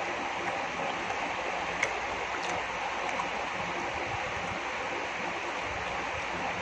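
Steady rushing background noise with two faint clicks about two seconds in.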